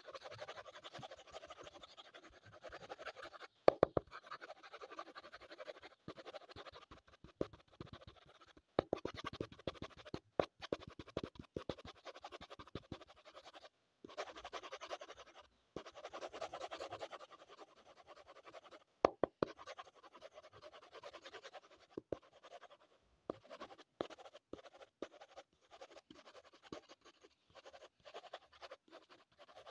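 Coloured pencil scratching on drawing paper in bursts of short shading strokes, with pauses and a few sharp clicks.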